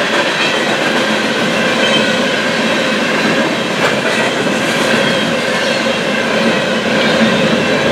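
Union Pacific coal train's open-top coal cars rolling steadily past, steel wheels running over the rails in a continuous loud rumble and rattle.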